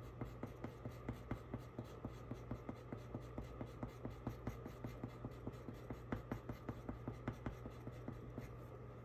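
Colored pencil scratching quick short strokes on paper, shading fur lines at about four or five strokes a second, stopping shortly before the end.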